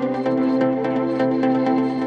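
Background music: sustained ambient notes with a plucked or tapped pattern over them.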